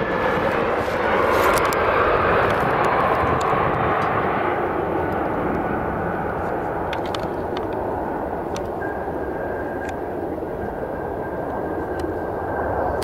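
Twin-engine jet airliner landing and rolling out on the runway: a steady rushing jet-engine noise. A thin, steady engine whine comes in about two-thirds of the way through, and the noise swells again near the end.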